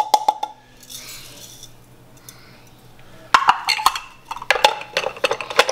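Plastic food-chopper bowl knocked and clinked against a glass mixing bowl to empty out ground chip crumbs. Sharp clicks at first, a short soft rustle of crumbs pouring out about a second in, then a quick run of knocks from about three seconds in.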